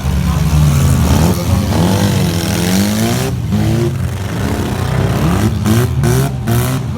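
Several race cars' engines revving hard at once, their pitches rising and falling over one another.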